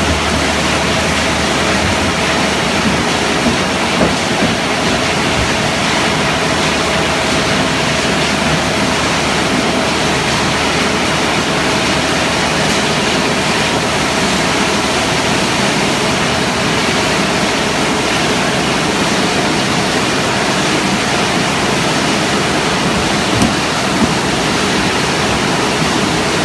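HDPE pipe shredding and crushing line running: a loud, steady machine noise from the crusher and conveyor, with a faint steady tone through it.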